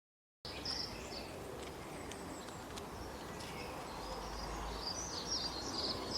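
Outdoor background noise with many short, high chirps, cutting in abruptly about half a second in after silence; the chirps grow busier near the end.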